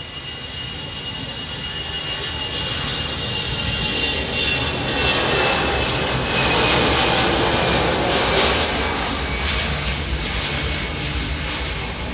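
Jet airliner flying past. A high engine whine slides down in pitch, under a rushing roar that builds to its loudest about seven to eight seconds in and then starts to fade.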